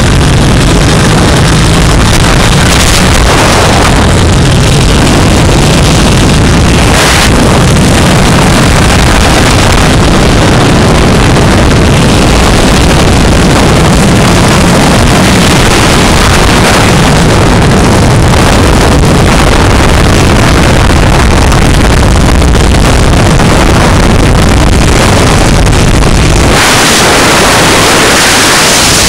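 Harley-Davidson Sportster Iron 883's air-cooled V-twin running at road speed, with heavy wind noise on the microphone. Near the end the engine sound drops back and the wind rush takes over.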